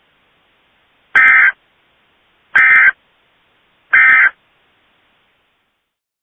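Emergency Alert System end-of-message signal: three short, raspy bursts of SAME digital data tones, about a second and a half apart, marking the end of the alert.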